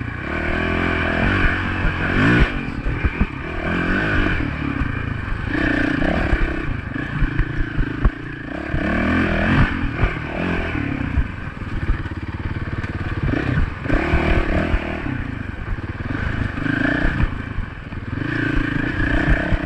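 Small Honda dirt bike engine running under way, revving up and falling back again and again as the throttle opens and closes, with rattles and knocks from the bike bouncing over rough trail.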